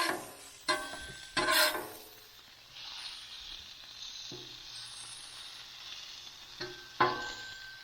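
Eggs and toast frying on a Blackstone flat-top griddle's steel plate, a steady sizzle, broken by sharp scrapes and clacks of a metal spatula on the griddle about a second in and twice near the end.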